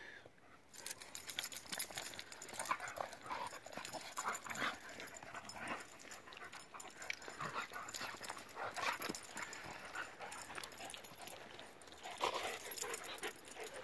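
Two dogs playing rough together, making short dog noises among many quick, scattered scuffling sounds.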